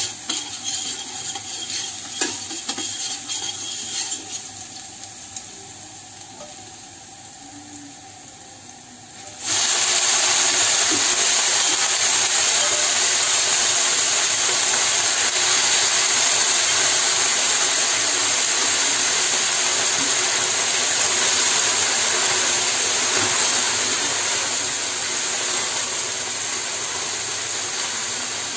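Minced garlic sizzling gently in oil in a stainless steel frying pan, with tongs scraping and clicking against the pan. About nine seconds in, a loud, steady hiss sets in as a heap of leafy greens frying in the hot oil sizzles, easing off slightly near the end.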